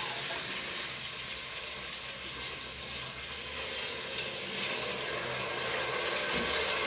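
Food frying in a pan: a steady sizzle, growing a little louder in the second half.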